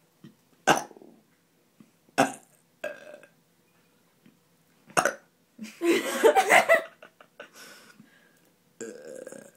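A run of burps: short sharp ones spaced a second or two apart, then a longer, louder belch about six seconds in, and a shorter one near the end.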